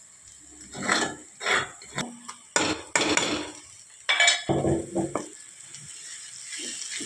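Wooden spatula knocking and scraping against a metal kadhai as pounded ginger-garlic-chilli paste is added and stirred into onions frying in oil, with a string of sharp clatters. Hot oil sizzles underneath, growing louder near the end as the paste is stirred through.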